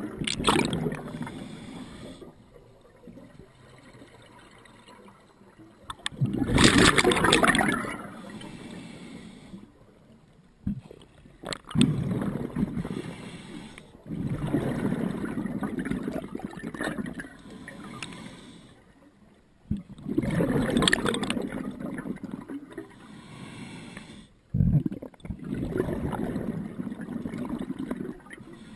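Scuba regulator breathing heard underwater: exhaled bubbles rush and gurgle past the camera in bursts every several seconds, with quieter stretches between. The loudest bursts come about seven seconds in and again about twenty seconds in.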